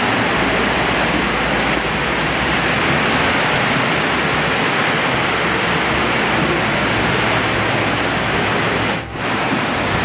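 Steady, loud rush of falling water from Fukuroda Falls, a large four-tiered waterfall, dipping briefly about nine seconds in.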